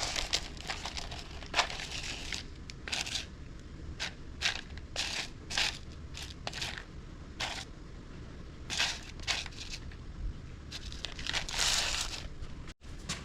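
A series of short crinkling and scraping noises from hands working on a chewed wiring harness: plastic wire insulation being handled and worked during the wire repair.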